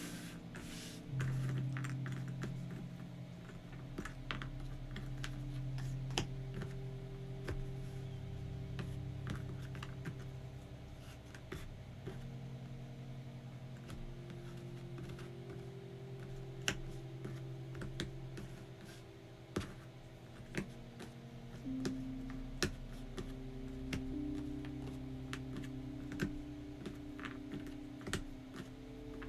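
Cardboard jigsaw puzzle pieces clicking and tapping against each other and the board as they are sorted and pressed together, in irregular light clicks, over soft sustained ambient background music.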